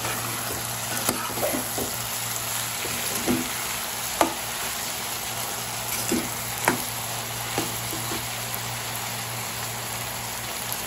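Mixed vegetables sizzling in hot coconut oil in a pan while a spatula stirs them, with several sharp knocks and scrapes of the spatula against the pan.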